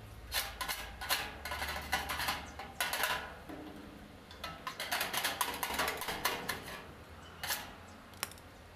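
Work at a welded seam on galvanized sheet metal: two spells of irregular metallic crackling and scratching, then a couple of single clicks near the end, over a low hum.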